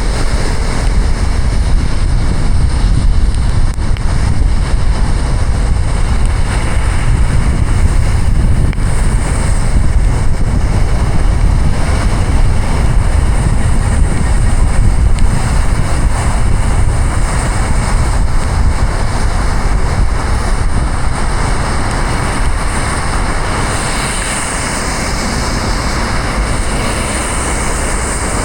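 Steady noise of a car driving through heavy rain: rain hitting the car and wet-road tyre noise over a deep, even rumble.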